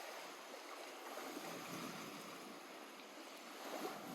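Lake water washing gently at the shore in a steady wash. It swells a little between about one and two seconds in, and there is a small splash near the end.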